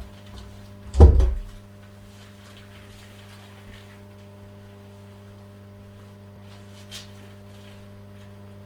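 Steady electrical mains hum, with one loud, short thump about a second in and a faint click near the end.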